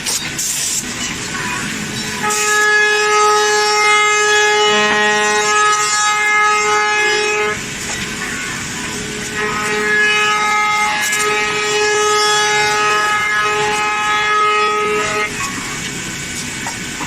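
5-axis CNC router spindle cutting a wooden chair backrest. It gives a loud, steady pitched whine during two cutting passes, from about two seconds in to past seven seconds and again from about ten to fifteen seconds, with a duller machine noise between them.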